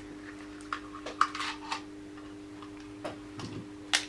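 Irregular sharp clicks, taps and a brief scrape as the cells and plastic case of an opened cordless drill battery pack are handled, over a steady low hum.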